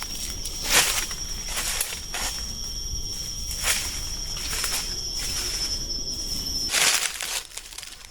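A steady, high insect drone, stopping abruptly near the end, under several short crunches and rustles of someone moving or working on the forest floor.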